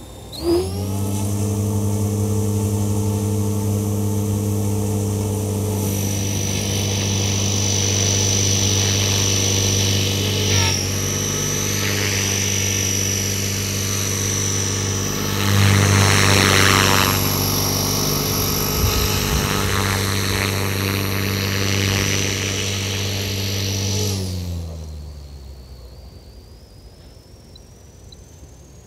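Quick Japan EP8 v2 EX electric 500-size RC helicopter on a 6-cell battery: its rotor spins up sharply about half a second in and runs with a steady hum and a high whine. Near the end the rotor winds down, falling in pitch and fading out.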